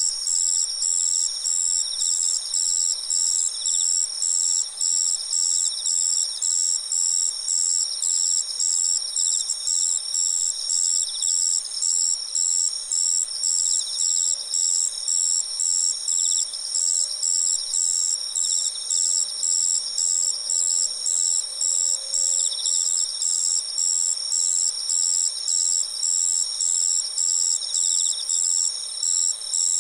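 A chorus of autumn crickets: several insects trilling at once in high, steady layers, one of them in short regular pulses a little more than once a second. The recordist wonders whether one of the singers is a band-legged ground cricket (madara-suzu, Dianemobius nigrofasciatus).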